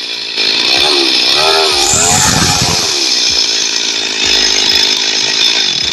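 A small engine-driven machine running loud, its pitch swinging up and down for a moment between about one and two seconds in, over a steady high whine.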